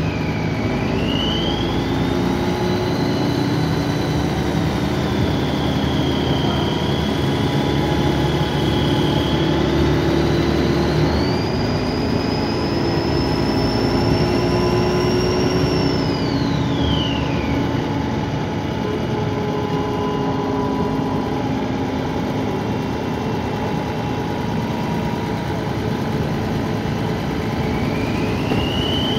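Dennis Trident 2 double-decker bus's diesel engine running under way, with a loud, high-pitched turbocharger whine over the engine rumble. The whine rises and falls with engine speed, climbs to its highest pitch a little over a third of the way in, then falls away and fades about halfway through, and returns rising near the end.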